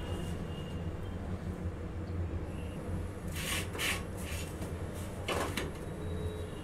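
Fingers turning a bajra roti around on a hot iron tawa, making a few short scraping rustles about halfway through, over a steady low hum.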